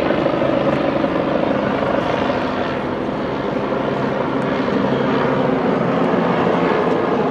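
A steady mechanical drone with a constant low hum.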